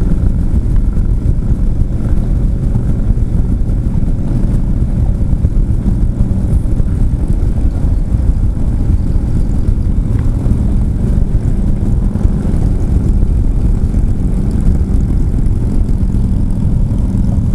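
Harley-Davidson Street Glide Special's V-twin engine running at highway speed, a steady low drone buried in heavy wind rush on the microphone.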